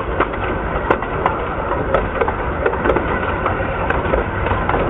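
Riding in a coach behind a 15-inch-gauge miniature steam locomotive: a steady running rumble of wheels on the track, broken by irregular sharp clicks and knocks from the wheels and coach.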